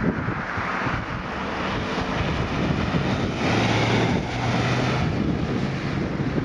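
Ambulance driving past close by at speed, its engine and tyre noise swelling as it passes about halfway through and then fading, with wind buffeting the microphone.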